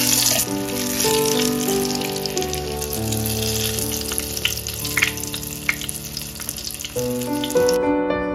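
Panko-breaded pieces deep-frying in hot oil in a glass saucepan: a steady, dense sizzle with scattered crackles and a few sharper clicks about midway, as tongs turn and lift them. The sizzle cuts off just before the end.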